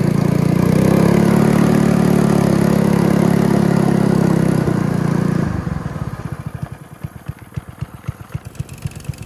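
Small gas engine of a stand-up ride-on vehicle running steadily up close. About five and a half seconds in it drops away to a quieter, even chugging of a small engine idling.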